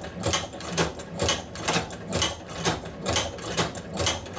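Cowboy OUTLAW hand-crank leather sewing machine stitching through three layers of 8 to 10 oz tooling leather, with a regular mechanical clacking about twice a second as the handle is worked through its strokes.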